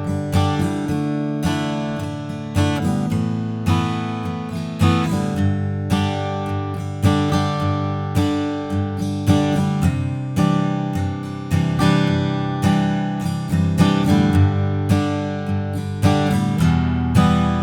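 Gibson J-45 Original acoustic guitar strummed, chords ringing in a steady rhythm.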